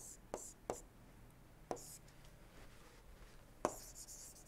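Faint stylus taps and short scratchy strokes on a tablet screen as handwriting is drawn: two taps within the first second, another just before the two-second mark, and a louder tap followed by a scratchy stroke near the end.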